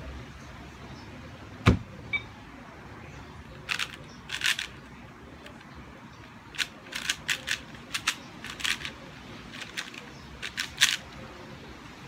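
QiYi QiYuan 4x4 speed cube being turned quickly by hand: irregular runs of short plastic clicks as its layers snap round, with one sharp louder knock about two seconds in.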